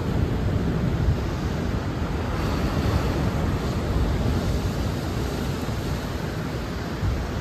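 Wind buffeting the microphone on the open deck of a ship under way at sea: a steady rushing noise with a heavy low rumble.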